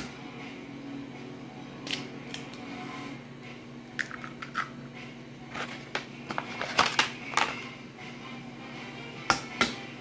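Scattered clicks, taps and crinkling of small kitchen items being handled over a plastic mixing bowl, busiest in the middle and ending with two sharp knocks, over faint background music.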